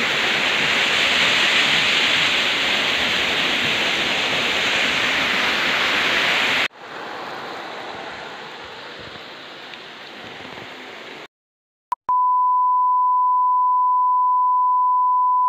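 Waterfall rushing, loud and steady, for about the first seven seconds, then a sudden cut to quieter running water over the forest floor for about four seconds. After a brief silence and a click, a steady single-pitch beep (the test tone that goes with colour bars) runs to the end.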